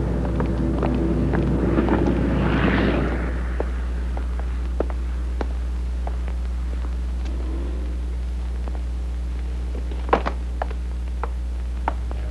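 A rumbling noise swells and fades over the first three seconds or so. After it a steady low hum runs on, with scattered sharp metallic taps and clinks of hand tools on an aircraft propeller's metal hub, including two close together about ten seconds in.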